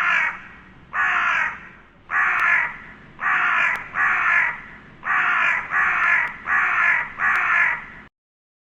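Crow-like cawing: nine harsh caws in a steady series, about one a second, cutting off abruptly near the end.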